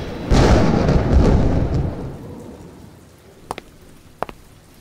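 A thunder-like rumbling boom from the show's prerecorded sound effects, swelling in just after the start and dying away over the next two seconds or so. Near the end come a few sharp clicks.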